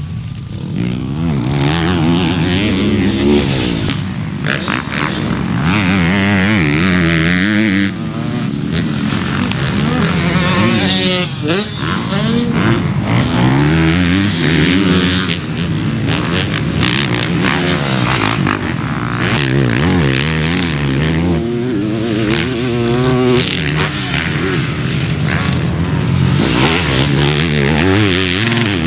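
Motocross bike engines revving hard on the track, pitch climbing and dropping again and again as the riders work the throttle and shift, with more than one bike heard at times.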